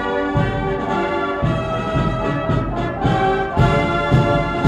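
Orchestral music led by brass, with held chords and strongly accented beats.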